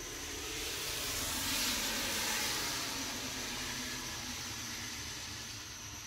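A car driving past: its tyre and road noise swells to its loudest about two seconds in, then slowly fades. A steady high insect trill runs underneath.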